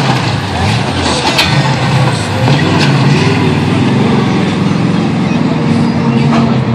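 Vehicle engine running, its low pitch rising and falling, amid the general noise of a crowd.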